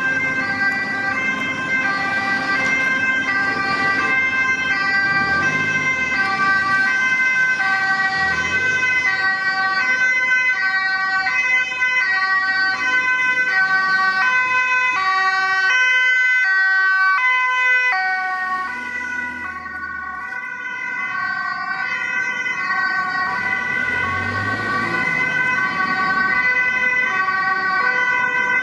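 Dutch ambulance's two-tone siren sounding continuously, alternating between a high and a low note, as the ambulance drives past on an urgent call. It is briefly quieter about two-thirds of the way in, with a low rumble of vehicle engine under it.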